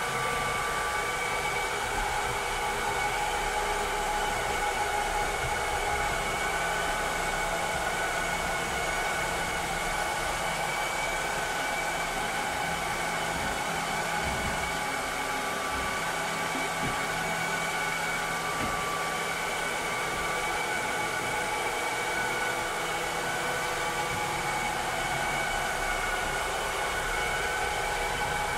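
Vileda robotic vacuum cleaner running steadily: a constant motor hum with several high whining tones over a hiss of suction.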